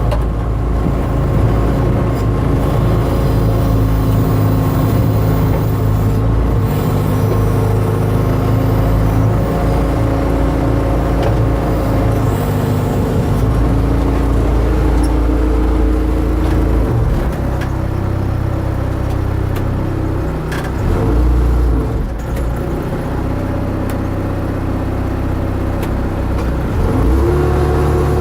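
Case 590 Super M backhoe loader's diesel engine running steadily. Its note shifts lower a little past halfway and rises again near the end as the engine revs up.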